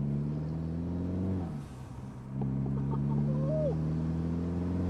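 Mercedes-Benz CLA250's turbocharged four-cylinder engine accelerating, heard from inside the cabin. The engine note rises, falls as the throttle is lifted about a second and a half in, then climbs through a longer second pull with a few short chirps and a brief whistle in the middle, and drops again at the very end.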